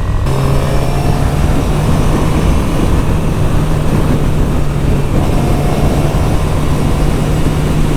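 Suzuki GSX-R600 inline-four engine running at a steady cruise in a high gear, with wind rush over the helmet microphone. The engine note and the wind step up just after the start, then hold steady.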